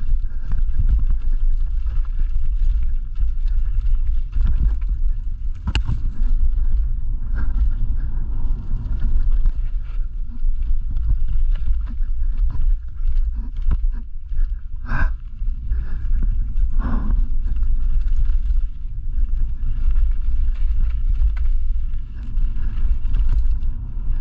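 Mountain bike descending a rocky, root-strewn forest trail: heavy wind buffeting on the bike-mounted camera's microphone, under a steady stream of knocks and rattles as the bike goes over rocks and roots. A sharp knock comes about six seconds in, with heavier jolts around fifteen and seventeen seconds.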